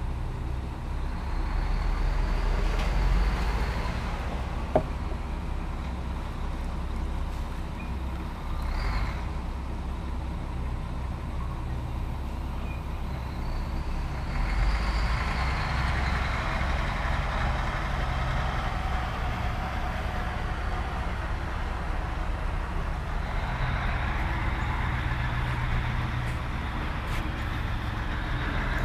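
Heavy dump truck diesel engines running, a steady low rumble that swells louder several times. There is a single sharp click about five seconds in.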